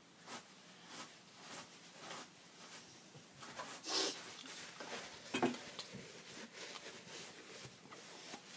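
Faint rustling and handling noises as paper tissues are pulled from a box and crumpled in the hand, a dozen or so short rustles, the loudest about four seconds in.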